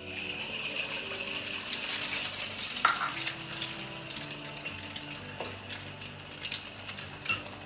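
An egg frying in a wok, crackling and sizzling steadily, with a metal spatula clinking against the wok a few times.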